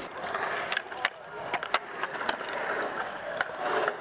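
Skateboard wheels rolling over concrete, with a string of sharp clacks from the board and trucks hitting the ground.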